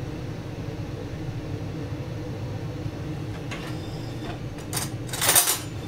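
Induction hob humming steadily as it heats a pan on a medium setting. Two brief rustling, scraping noises come near the end.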